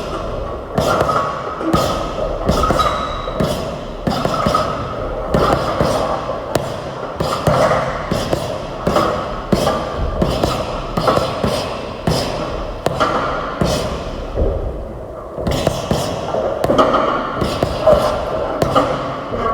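Music with a strong beat: sharp percussive hits land roughly twice a second over a steady backing, with a brief dip about fifteen seconds in.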